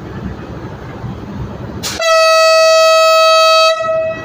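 Train horn sounding one loud, steady single-note blast of under two seconds, starting about halfway through and cutting off sharply: the departure signal of a passenger train leaving the station. A low rumble runs under it and continues after it stops.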